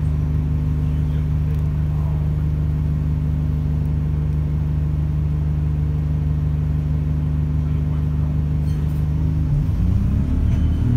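Alexander Dennis Enviro 200 single-deck bus's diesel engine idling steadily while the bus stands at a stop, heard from inside the saloon. Near the end the engine note rises as the bus starts to pull away.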